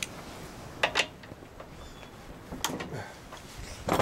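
Several sharp metal clicks and knocks, spaced unevenly, as a ratchet and socket are handled against a small gas engine during disassembly.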